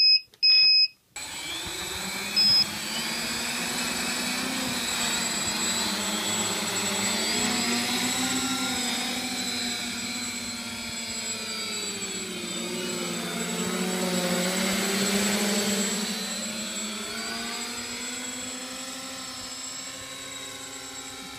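Two short high electronic beeps, then the electric motors and propellers of a Y6 tricopter humming in flight. Several tones drift up and down in pitch as the motors speed up and slow down to hold it in the air.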